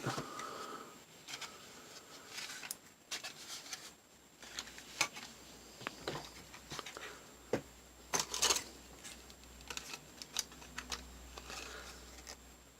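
Irregular light clicks, taps and rustling of a plastic RC buggy being handled and turned about, with a few sharper clicks in the second half.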